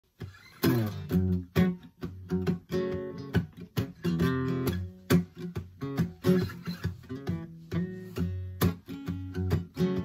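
Solo acoustic guitar playing a blues intro, notes and chords with sharp string attacks, starting about half a second in.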